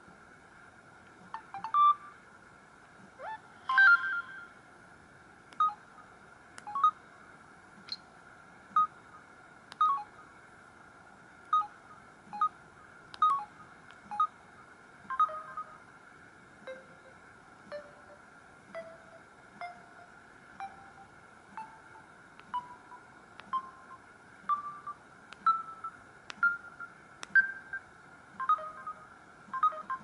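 Samsung Corby GT-S3650 touchscreen keypad tones: short single beeps about one a second as digits are pressed, stepping up in pitch through the second half like a rising scale. A brief louder alert tone sounds in the first few seconds.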